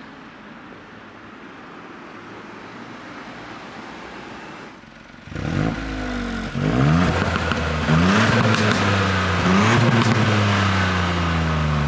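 Ford Fiesta ST's 1.5-litre three-cylinder turbo engine under hard acceleration through the gears. A steady low hum gives way about five seconds in to a loud engine note that climbs in pitch, drops at each gear change, climbs again three times, then falls away slowly.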